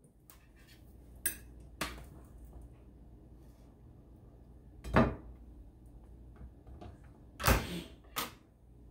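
Scattered clicks and knocks as a flip waffle maker is opened and a cooked waffle is lifted out with a fork and set on a glass plate, the loudest knock about five seconds in.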